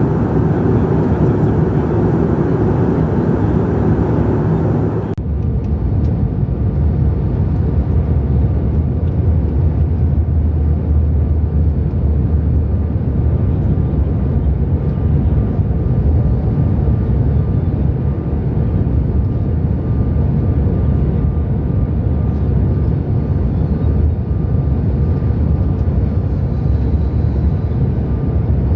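Steady cabin noise inside a CRJ-900 regional jet in flight: rushing air and the drone of its rear-mounted turbofans. About five seconds in the sound changes abruptly, as the hiss drops away and a deeper drone takes over, with a faint thin whine.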